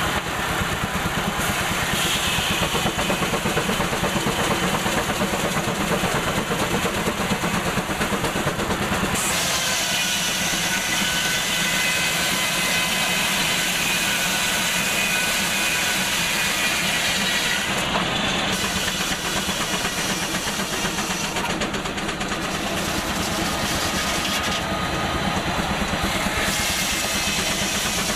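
Large circular sawmill blade running and cutting through a log. A high whine rises in from about nine seconds in, carried over a steady hissing machinery noise.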